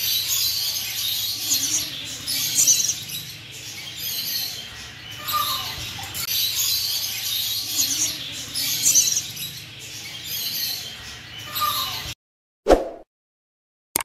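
Cockatoo chirping and chattering softly with no words. The sound cuts off suddenly about twelve seconds in, followed by a short electronic blip near the end.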